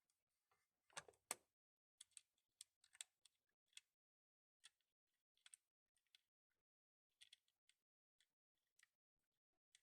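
Faint, irregular light clicks and taps, a few a second, with a louder pair about a second in.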